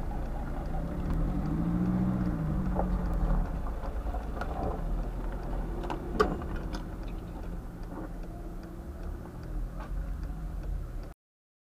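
Low rumble of a vehicle engine whose pitch rises and falls over about two seconds, then scattered sharp clicks, the loudest about six seconds in. The sound cuts off suddenly near the end.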